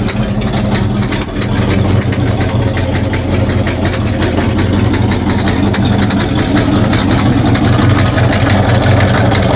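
Inboard Chevrolet 350 small-block V8 engine of a Chris Craft ski boat idling steadily.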